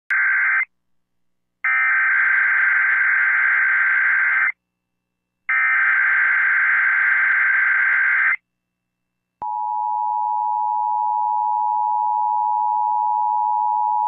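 Emergency Alert System tones for a Required Monthly Test. First come three bursts of SAME header data: a brief one, then two of about three seconds each, with short gaps between them. About nine seconds in, the steady two-tone attention signal (853 and 960 Hz) begins and holds.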